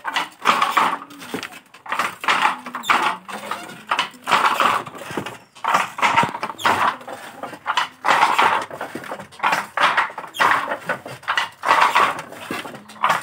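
Wooden frame loom being worked by hand: short knocks and rustles of the wood and threads, coming irregularly about once a second.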